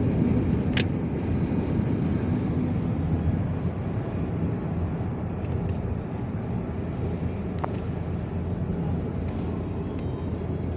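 Steady engine hum and road noise from inside a moving vehicle cruising on a highway, with a couple of faint sharp ticks.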